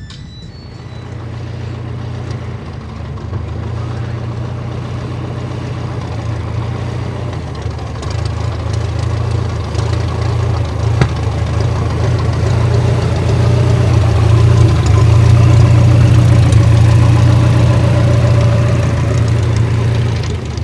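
Pitts S-1S aerobatic biplane's single piston engine and propeller running at low, steady power, growing gradually louder as the plane comes closer.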